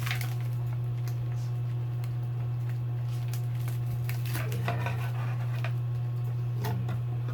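Hard plastic tail-light parts and their packaging being handled, with scattered light clicks and rattles, over a steady low hum.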